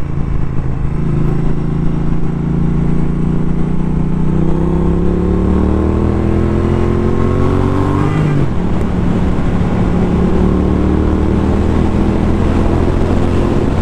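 Triumph 900 cc parallel-twin motorcycle engine under way, its pitch climbing as it accelerates from about four seconds in, falling abruptly at a gear change about eight seconds in, then running steadily and slowly building again.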